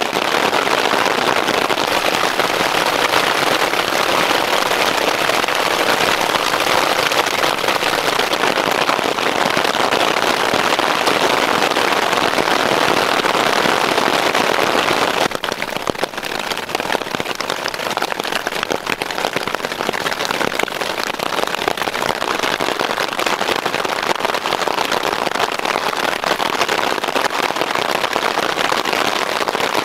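Hail and heavy rain drumming on a tarp overhead, heard from underneath as a loud, dense, unbroken clatter. About halfway through it eases slightly and single hailstone strikes stand out more.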